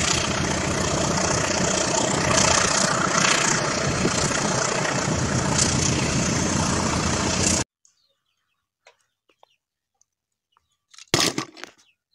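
Dump truck engine running steadily as the truck tips a load of sand, cutting off abruptly about eight seconds in. Near the end, a short clatter of plastic toys.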